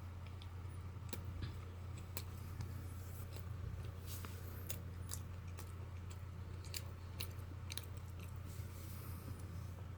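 Faint, irregular light taps and clicks of fingertips on an iPad's touchscreen over a steady low hum.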